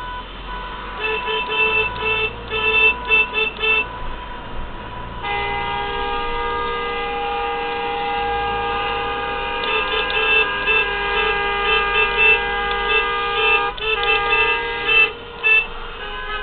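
Several car horns honking in protest against motorway tolls. A run of short rhythmic toots comes about a second in; from about five seconds several horns are held down at once, overlapping, with more short toots over them, until they break off near the end.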